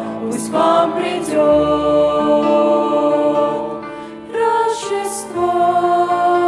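Vocal ensemble singing a Russian-language Christmas song in harmony, the voices holding long chords with sharp 's' consonants between the words.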